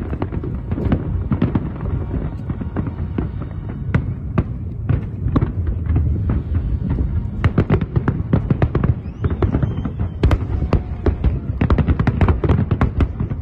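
Large fireworks display: a continuous barrage of shell bursts and crackles over a deep rumble, the bangs coming thicker in the second half.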